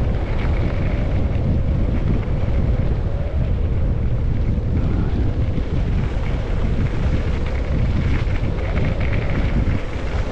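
Wind buffeting the microphone of a skier's camera during a fast downhill ski run: a loud, steady low rumble with a fainter hiss of skis on snow above it.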